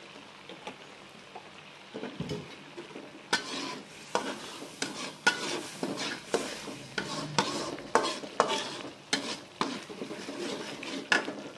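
Ground spice paste frying in oil in a wok, with a metal spatula scraping and stirring it. It is faint at first, then from about three seconds in there are short scraping strokes, about two a second.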